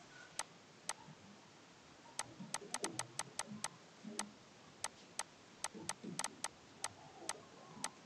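Stylus tip tapping and scratching against a tablet or touchscreen during handwriting: a faint string of sharp clicks at an uneven pace, bunched in clusters.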